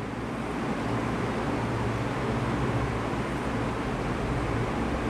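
Steady low hum with an even hiss over it: the background noise of the room, with no separate strokes or knocks standing out.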